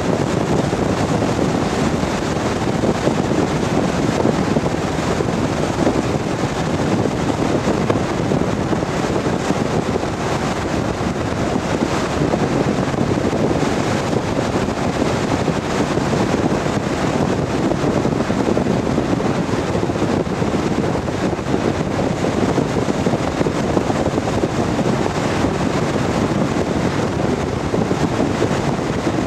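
Lotus Elan M100 driven at speed, heard from inside the cabin: a steady rush of wind and road noise that does not let up.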